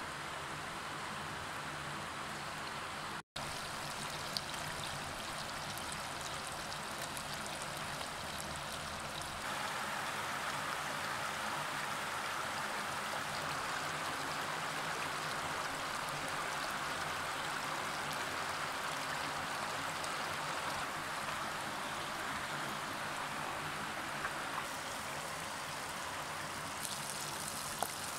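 Shallow river water running steadily over pebbles, with a brighter hiss coming in near the end.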